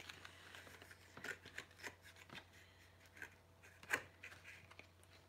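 Faint scattered clicks and rustles of a makeup palette's packaging being handled and picked open, with one louder click about four seconds in.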